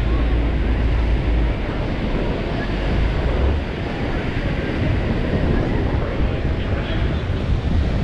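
Ocean surf breaking and washing up the beach, with wind buffeting the microphone in gusts, strongest about the first second and a half and again briefly a little past the middle.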